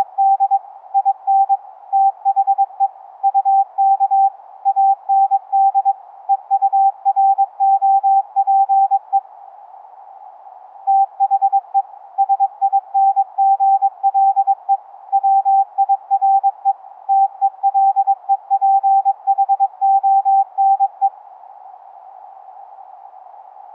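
Morse code on a single mid-pitched CW tone, keyed on and off in dots and dashes over a steady band of hiss. It is the 11 Hz ELF signal shifted up to an audible pitch by a sound-card SDR's mixer. The keying pauses for about a second and a half some nine seconds in, and stops again about three seconds before the end, leaving only the hiss.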